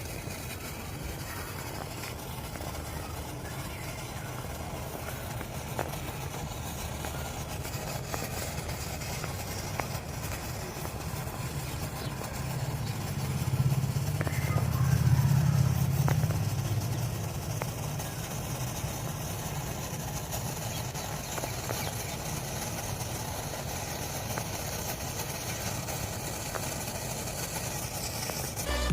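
Low steady rumble of an engine, swelling louder about halfway through and then easing off again.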